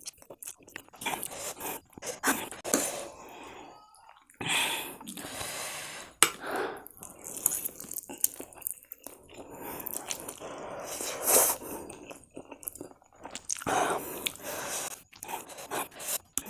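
A person chewing Korean spicy instant noodles, with irregular short crunching and biting sounds.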